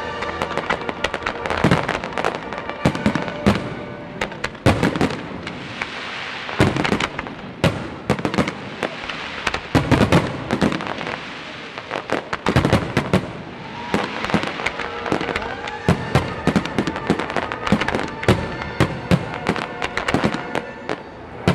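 Aerial fireworks display: shells bursting in quick, irregular succession, several bangs a second at times, over a continuous crackle.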